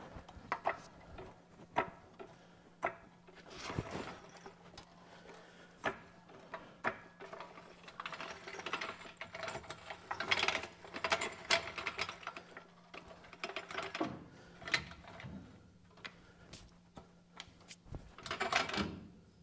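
A heavy trailer brake drum and hub assembly being worked onto a 15,000 lb axle spindle from a floor jack, making irregular metal clicks, clunks and scraping. The busiest stretches come in the middle and near the end.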